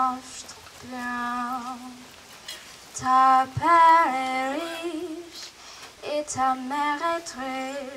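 A female voice singing a slow solo melody without accompaniment, in phrases of one to two seconds with long held notes and short breaks between them.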